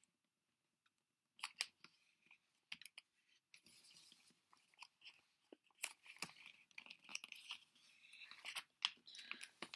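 A sheet of paper crinkling and rustling in faint, irregular crackles as it is folded and creased by hand.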